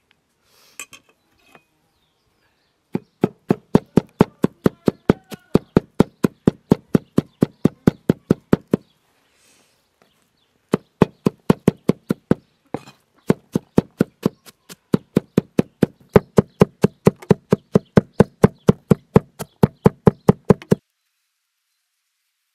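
Large kitchen knife chopping onion on a wooden cutting board: the blade knocks the board in quick, even strokes, about three a second. There are three runs, with short pauses about nine and twelve seconds in, and the chopping stops a second or two before the end.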